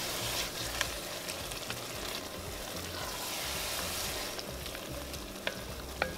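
Ground-beef chili with red wine and beef stock sizzling steadily in a white enameled pot as the wine cooks off, stirred with a wooden spatula that scrapes and taps against the pot a few times.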